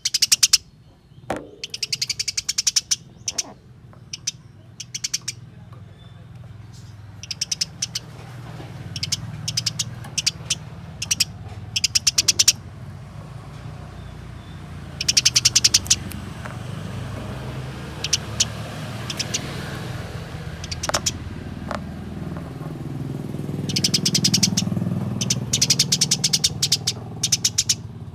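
Eurasian tree sparrows chattering in groups of fast, harsh chirps, the long excited chatter of sparrows squabbling. A low steady rumble runs underneath and grows louder near the end.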